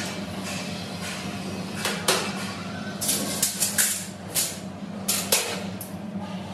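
Sharp clicks and knocks of sheet-metal supermarket shelving and plastic shelf-edge strips being handled and fitted, with a cluster of quick knocks in the middle, over a steady low hum.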